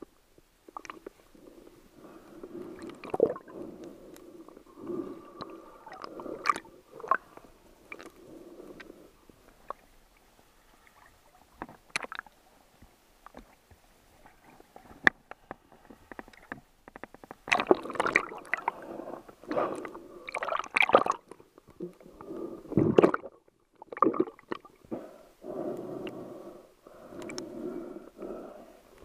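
Water sloshing and gurgling around an underwater camera housing in muffled, irregular surges, with scattered sharp clicks and knocks on the housing. It is busiest from about two-thirds of the way in.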